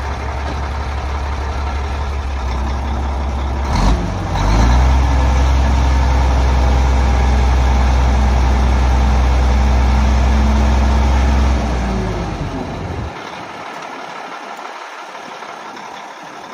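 Mack R688 dump truck's diesel engine idling, then a clunk about four seconds in and the engine speeding up to a steady higher speed while the dump bed is hoisted. About twelve seconds in the engine drops back, and its sound dies away a second later.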